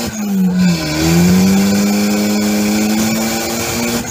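Turbocharged Mazda Miata B6 1.6 L four-cylinder engine accelerating hard, heard from inside the cabin. The revs drop at a gear change about half a second in, climb steadily again, and drop once more at the very end.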